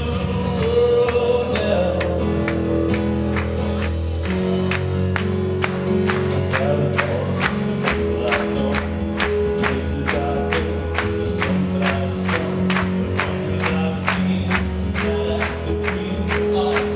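Live pop band: a male singer sings over keyboard and drums, with a steady driving beat.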